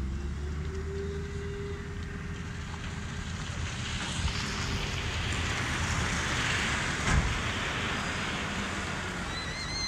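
A car passing on the paved road alongside, its tyre and engine noise swelling to its loudest past the middle, over a steady low rumble of traffic. A single thump a little after seven seconds, and a few bird chirps near the end.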